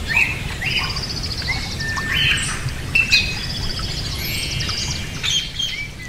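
Several birds chirping and trilling: overlapping short whistled notes and fast rapid trills, over a low steady hum.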